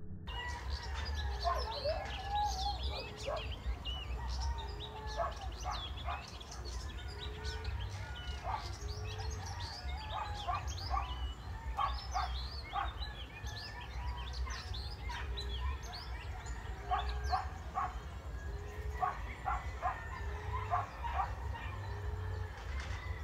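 Small birds chirping busily, over a low, short emerald dove coo repeated about every one and a half to two seconds. A low rumble runs underneath.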